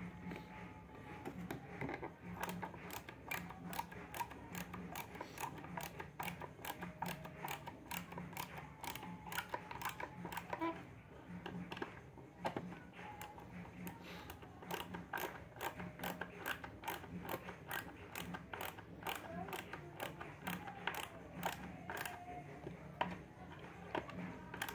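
Hand screwdriver driving screws into pine boards: a steady run of sharp clicks, about three a second, as the screwdriver is turned, over a low steady hum.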